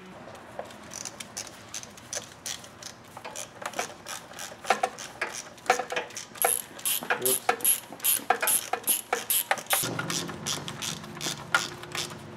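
Small hand ratchet clicking in quick runs as it spins in the transmission oil-pan bolts, the clicking growing busier partway through.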